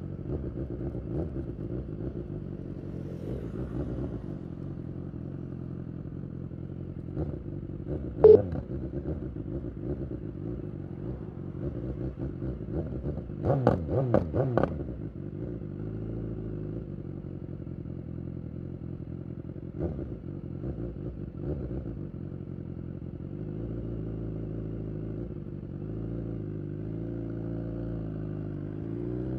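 BMW S1000R inline-four with a full Akrapovic exhaust, idling steadily at low revs. A single sharp clunk about eight seconds in, and a short stretch of louder, uneven sound around the middle.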